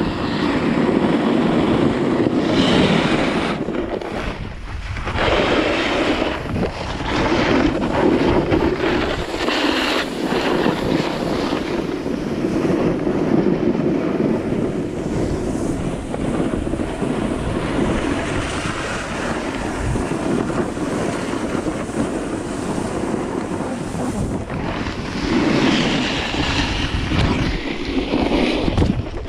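Wind rushing over an action camera's microphone during a fast run downhill, mixed with the scrape of a snowboard sliding over snow. The noise swells and eases as the rider turns.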